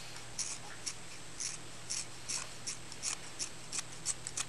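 Thinning scissors snipping through a dog's long ear hair: a quick run of short, crisp snips, about two or three a second, coming faster near the end.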